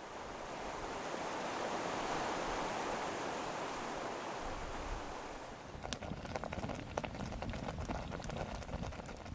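Campfire crackling and popping over a steady rushing noise, with sharp crackles growing frequent from about six seconds in.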